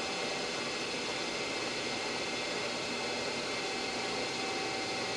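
Royal Master TG-12-4 centerless grinder running under power, with its wheels and hydraulic pump turning over: a steady whir with a faint steady whine, unchanging throughout.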